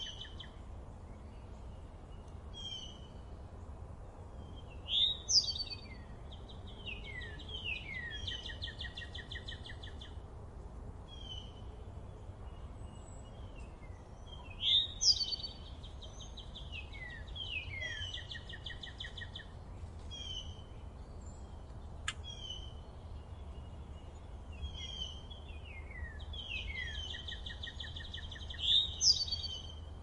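Wild songbirds singing and chirping. A louder phrase of slurred notes and trills comes back about every ten seconds: about five seconds in, mid-way, and near the end. A steady low rumble of background noise runs underneath.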